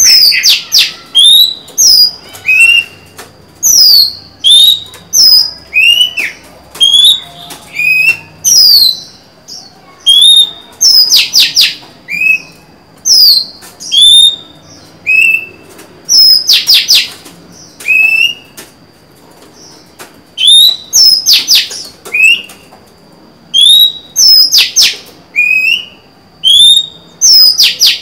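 Female Oriental magpie-robin singing loud, varied whistled phrases: clear notes sweeping down from high, shorter rising notes, and quick rattling trills, phrase after phrase about every second. There is a brief lull about two-thirds of the way through.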